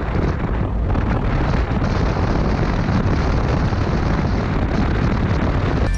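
Wind buffeting the microphone: a loud, steady, rumbling rush with no clear engine note or tones.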